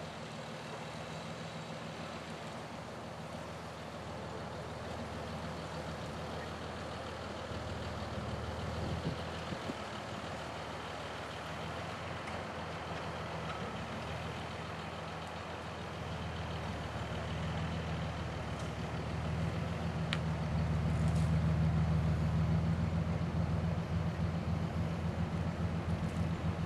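Delivery truck's engine running steadily as it manoeuvres the shed trailer into position, getting louder about two-thirds of the way through as it works harder.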